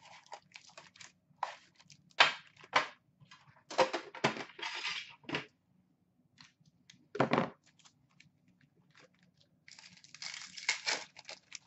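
Foil hockey card packs and box packaging crinkling in irregular bursts as the packs are handled and stacked on a glass counter. There is a heavier knock about seven seconds in and a denser run of crinkling near the end.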